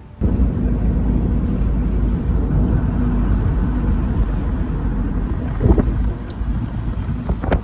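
Car on the move, heard from inside the cabin: a loud, steady rush of road and wind noise that cuts in suddenly, with a couple of short knocks near the end.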